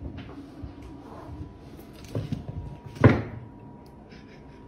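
A few soft knocks, then one louder thud about three seconds in, over a faint steady high tone.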